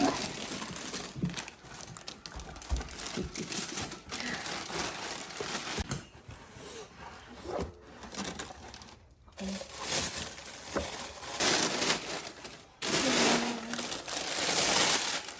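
Plastic sheeting or packaging being handled, with irregular crinkling and rustling that breaks off briefly a few times.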